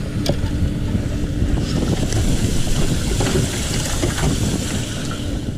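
Wind buffeting an action camera's microphone in a steady low rumble. From about two seconds in, the hiss of water churning in an aerated bait tank joins it.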